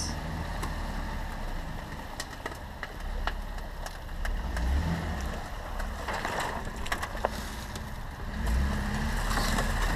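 Jeep Wrangler Unlimited JK's engine running low and steady as it crawls slowly over rough ground, swelling briefly about halfway and again near the end. Tyres crunch over rocks and brush in scattered sharp clicks.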